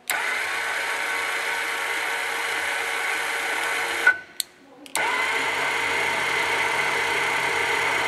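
ServoCity Super Duty linear actuator's geared DC motor running with a steady whine for about four seconds, then cutting off with a click as the newly set limit switch stops it. About a second later it starts up again, reversing, and runs steadily.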